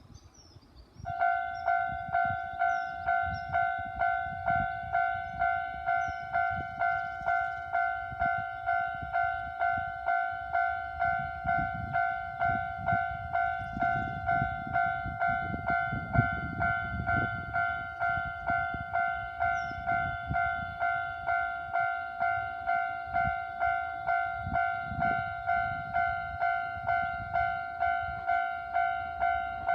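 Japanese level-crossing warning bell at a class-3 crossing on the Yoro Railway: an electronic ding repeating at an even beat, starting about a second in and ringing on without a break. A train's low rumble swells under it through the middle.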